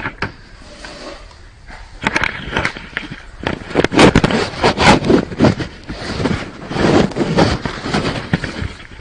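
Irregular knocks, clatters and rustles of equipment being handled close to the microphone. It is quieter for about the first two seconds, then busy and loudest around the middle.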